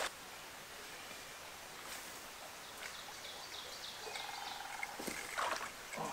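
Quiet woodland streamside ambience: a faint steady wash of running water, a few short high bird chirps in the middle, and a couple of brief lower animal calls near the end.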